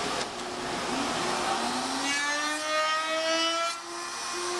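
Table-mounted wood router switched on, its motor spinning up with a rising whine and then running at a steady high speed.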